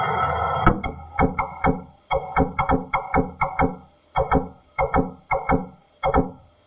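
Orion capsule's attitude-control (reaction control) thrusters firing in short pulses, one after another, to hold the capsule's orientation during re-entry and steer toward the landing site. A steady hiss cuts off suddenly under a second in, then comes a rapid, irregular run of short thuds, several a second, each ringing briefly at the same few pitches.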